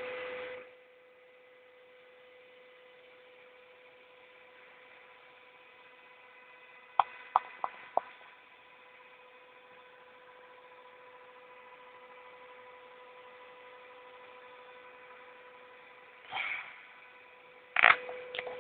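Homemade GU50 tube amplifier humming faintly and steadily at idle, with no signal playing. Four sharp clicks come about seven to eight seconds in, and two short crackling bursts near the end, the second one louder.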